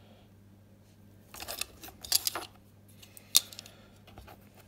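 Sheet of thin black card being handled and laid down on a plastic cutting mat: a few short dry scrapes and rustles, then a sharp tap about three and a half seconds in, over a faint steady hum.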